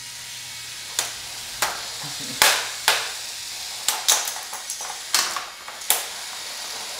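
Hexbug BattleBots toy robots fighting in a plastic arena: a faint steady whir of their small electric motors, broken by about ten sharp plastic clacks as they hit each other, several in quick pairs.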